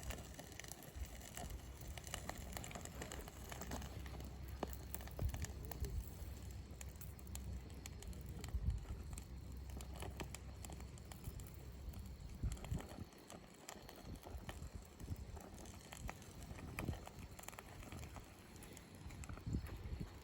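Campfire burning, the wood crackling with irregular pops and snaps over a low, steady rumble.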